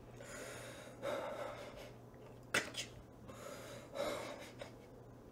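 A man sobbing with ragged, gasping breaths roughly once a second, the sharpest gasp about two and a half seconds in, over a faint low hum.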